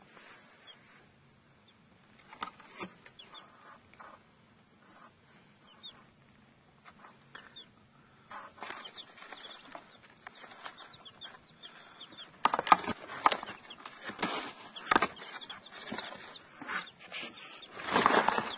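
Young chicks peeping in short, high cheeps, sparse at first and busier after about eight seconds. From about twelve seconds in, louder scuffing and rustling noises come in bursts and are the loudest sound.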